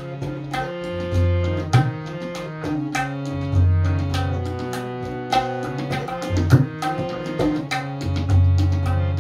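Tabla and harmonium playing an instrumental passage of Sikh kirtan. Sharp tabla strokes and deep booming bayan notes sound over the harmonium's steady held notes.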